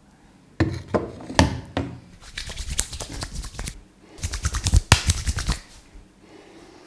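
Massage strokes by hand on the head and back: hands tapping and slapping in three quick bursts, the last a fast, dense run of strokes.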